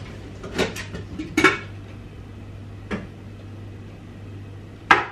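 Kitchen pots and dishes being handled: a handful of short clanks and knocks, the loudest about a second and a half in and near the end, over a steady low hum.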